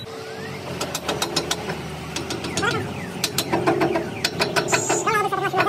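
Hammer tapping on the steel piston of a hydraulic jack cylinder: sharp metallic knocks, a few at first, then coming quicker, about four a second, in the second half.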